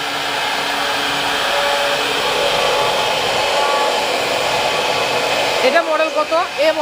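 CNC router's spindle running steadily as its bit carves a relief pattern into a wooden door panel, a continuous whirring cutting noise with faint steady tones.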